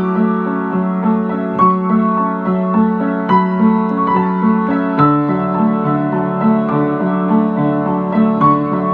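An upright piano played: a repeating pattern of low notes under a melody line higher up. The bass moves lower about halfway through.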